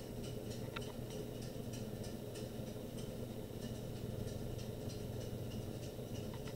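Steady low room hum with faint, irregular soft ticks from a small paintbrush dabbing paint onto a wooden model airplane.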